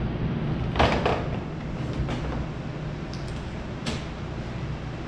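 Clunks and clicks from handling the opened top-load washing machine and its control board: a sharp knock about a second in and two weaker ones later, with a few small clicks, over a steady low hum.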